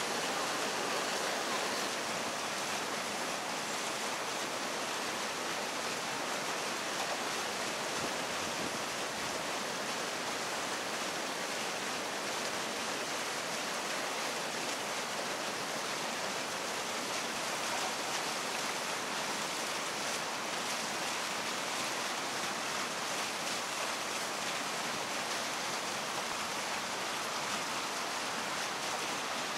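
Iwatani-Primus P-153 gas canister stove burning at full flame: the burner's steady hiss under a pot of water.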